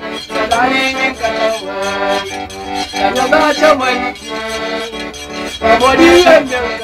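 Funaná played on a gaita, a diatonic button accordion, over a scraped ferro keeping a rasping rhythm, with the accordionist singing along near the end.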